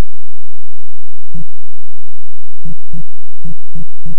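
Floppy disk drive reading files: the drive motor starts with a steady hum, and from about a second in the head steps with six short clunks at uneven gaps.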